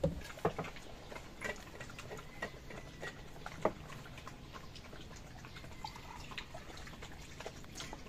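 Dogs eating from bowls: irregular small clicks and taps of chewing and bowls being nudged, a few sharper ones in the first half.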